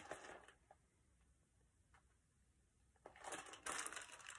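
Mostly near silence, then about three seconds in, a soft papery rustle of a hardback picture book's pages being handled and turned.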